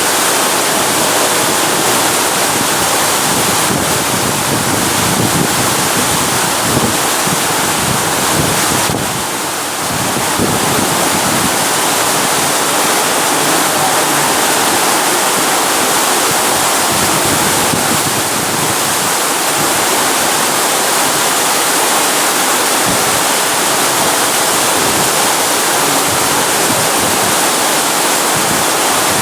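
Heavy rain pouring down in strong wind: a loud, steady rush of noise that dips briefly about nine seconds in.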